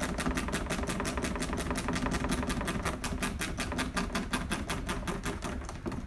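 Ratchet wrench on a 10 mm screw clicking rapidly and evenly, about eight clicks a second, as the screw is backed out. The clicking stops just before the end.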